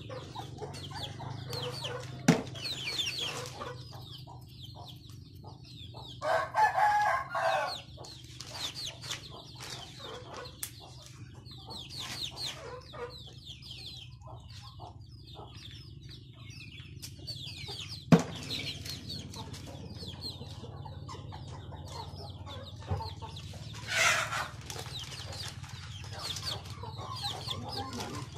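Chickens clucking and calling on and off, with a louder call lasting about a second some six and a half seconds in and another near the end. Two sharp clicks, one about two seconds in and one about eighteen seconds in.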